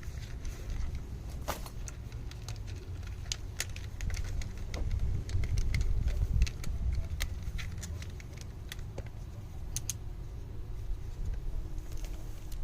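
Scattered small clicks and taps of meter probes and wire leads being handled on the AC unit's motor terminals, over a steady low rumble.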